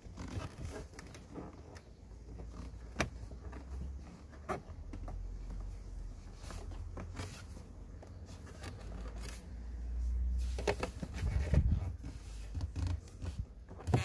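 Plastic clicks, knocks and scraping as a car's cabin air filter and its plastic housing cover are handled behind the glove box, over a low rustling rumble. The clicks come a few at a time, with a louder cluster of knocks near the end.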